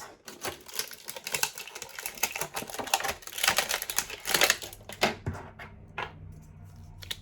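Small plastic figures and their packaging being handled and unpacked: a quick run of clicking and rustling that thins to a few separate clicks after about five seconds.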